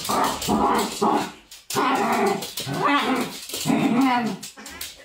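Small dog play-growling at a cat during rough play, a string of about seven short, wavering growls with brief pauses between them.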